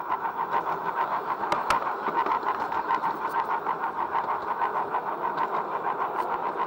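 LGB garden-scale model train running along its track, heard from a camera riding on it: a steady hum of the small electric motor, gears and wheels on the rails, pulsing in a rapid, even rhythm.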